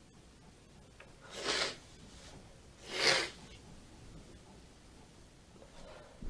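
Two short, hissy sneezes from a woman's tickly, stuffy nose, about a second and a half apart: allergy sneezes set off by a cat.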